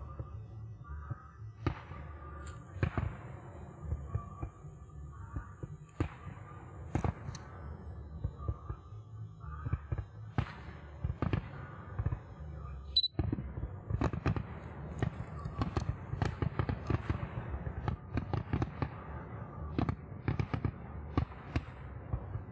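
Fireworks display going off: shell bursts and crackles, spaced out at first, then coming thick and fast from about the middle on.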